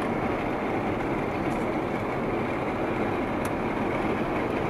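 Steady road and engine noise of a moving car, heard from inside the car as it drives along.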